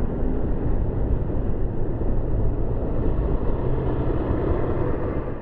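City street traffic: buses and cars passing close by, a steady low rumble of engines and tyres, which swells as a city bus goes right past near the end.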